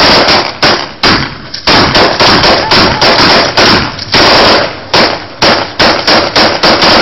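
AK-47 rifle fire: irregular single shots and short rapid bursts, about three very loud reports a second, with a longer burst about four seconds in.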